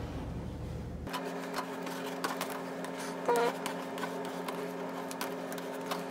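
A plastic card used as a squeegee rubbing and pressing a vinyl sticker onto a hard plastic RC truck body: light scratchy clicks and rustles, with one short squeak a little over three seconds in. A steady low hum comes in about a second in.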